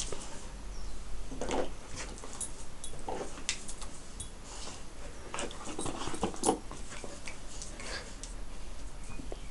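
Two dogs at play, a Siberian Husky puppy and a Springador, making short grunts and whines, with scattered clicks among them.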